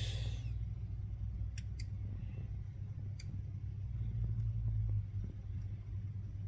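Steady low hum of the car, heard inside the cabin, swelling slightly about four seconds in, with a few faint clicks about one and a half and three seconds in.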